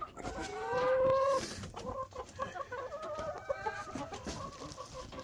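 Hens in the coop calling: one long drawn-out call of about a second near the start, then a run of short, rapid clucks. The sounds come from broody hens disturbed on their nests.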